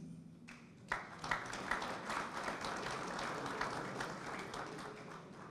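Audience applauding, starting about a second in and easing off slightly toward the end.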